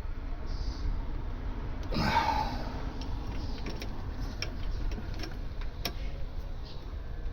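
Ratchet wrench ticking in short strokes while the brake caliper bolts are tightened, over a low steady rumble. A brief louder scrape comes about two seconds in.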